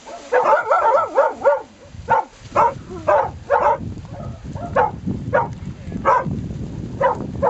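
A dog barking: a quick run of yelps in the first second and a half, then a steady string of short, sharp barks, one or two a second. A low rumble sits underneath from about two seconds in.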